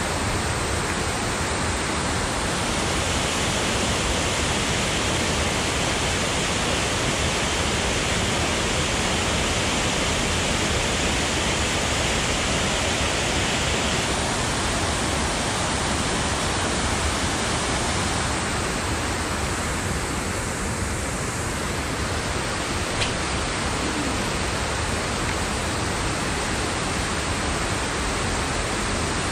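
Steady, unbroken rush of water pouring over a dam waterfall.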